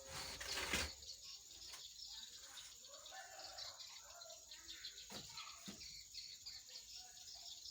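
Insects, such as crickets, trilling steadily in the background with occasional bird chirps. A brief burst of noise comes in the first second, and there are two light knocks about five seconds in.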